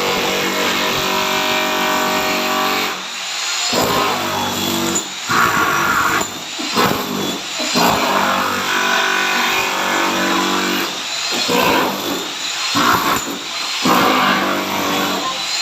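A motor running in on-off bursts of one to three seconds, holding a steady pitch while it runs.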